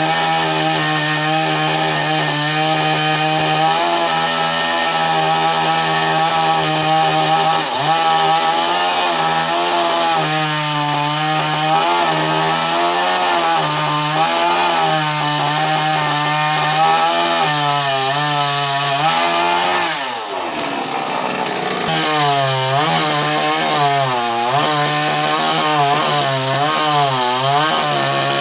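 Chainsaw running under load while cutting coconut tree wood, its engine pitch rising and falling as it bites. About 20 seconds in, the engine briefly drops in speed, then picks up again and keeps cutting.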